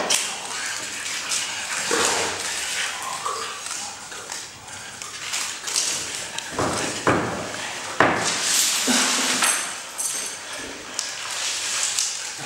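A man's wordless vocal sounds, harsh breaths and cries, broken by several sudden loud outbursts, the strongest about seven and eight seconds in.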